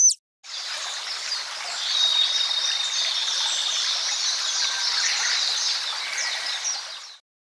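Many small birds chirping over a steady rushing hiss, starting abruptly about half a second in and cutting off abruptly near the end.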